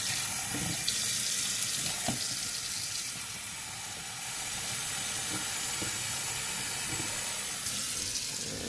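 Hot water running from a kitchen faucet into a small container in a stainless-steel sink, a steady hiss.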